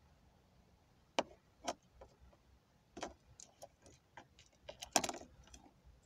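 Sharp plastic clicks and light metal rattles from handling a Land Rover Freelander remote key fob's empty shell and its key ring on a dashboard. A few single clicks come first, then a quick cluster about five seconds in, the loudest of them.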